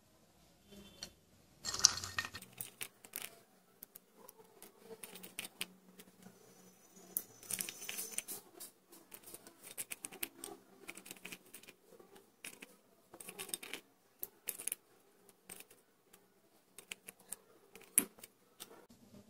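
Light, scattered clicks, taps and rustles of hands picking up raisins and cashews and laying them on a bowl of pudding, with a sharper knock about two seconds in and another near the end.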